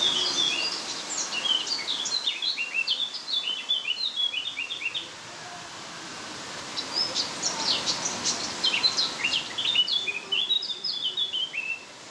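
A songbird singing: two long runs of rapid, high chirping notes, with a pause of about two seconds between them, about five seconds in. The song stops just before the end.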